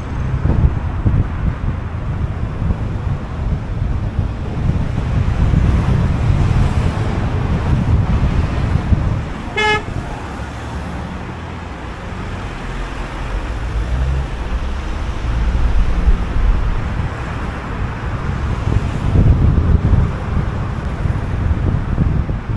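Steady low rumble of a car driving on city streets, engine and tyre noise, with a short car-horn toot about ten seconds in.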